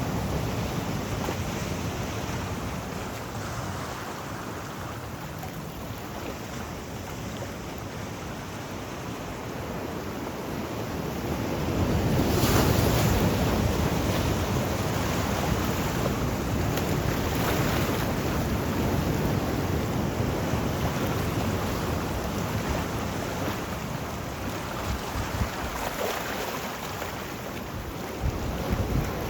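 Sea waves washing onto the shore in a continuous surf noise that rises and falls, loudest as a wave breaks about twelve seconds in, with some wind on the microphone.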